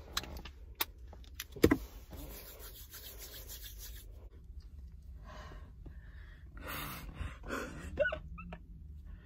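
A few sharp clicks, like a flip-top cap on a small hand-sanitizer bottle, then a couple of seconds of hands rubbing together, with more handling noise afterwards, all over a low steady hum. A short breathy vocal sound comes near the end.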